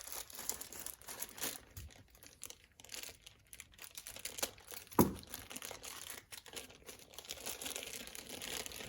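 Crinkling of plastic packaging being handled, with scattered crackles throughout and one sharp knock about five seconds in; it fits a new fork oil seal being taken out of its wrapper.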